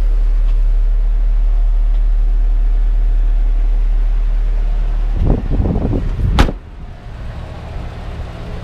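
1986 Mazda B2000's 2.0-litre inline-four idling, a steady low hum heard inside the cab. About five seconds in come some shuffling knocks and then a sharp bang as the cab door shuts, after which the idle carries on more quietly from outside the truck.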